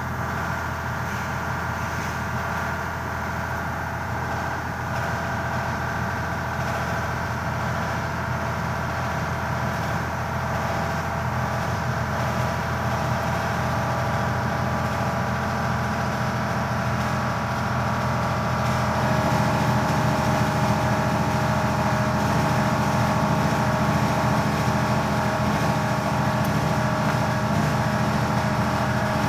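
Gasoline engine of an H-20 series forklift running steadily; about two-thirds of the way through its note changes and it runs a little louder.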